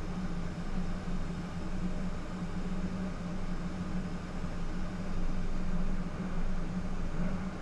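Steady hum and rushing air in a car paint spray booth: the booth's ventilation fans running, with a spray gun hissing as it lays down base coat.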